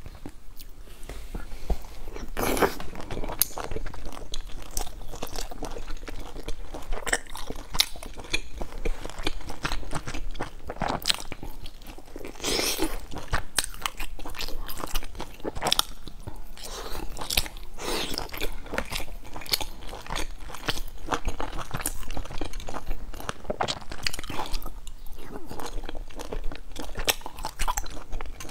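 Close-miked eating: bites into pan-fried buns (shengjianbao) and chewing, with frequent crunchy clicks and crackles from the fried dough.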